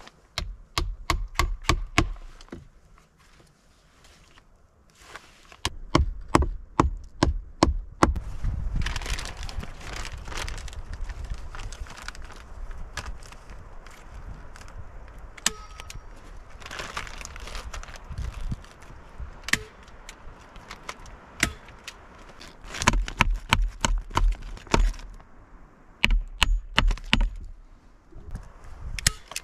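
Hammer tapping small nails into the wooden frame of a cabin window in several quick runs of strikes, with crinkling of the foil sheeting being fixed over the opening between the runs.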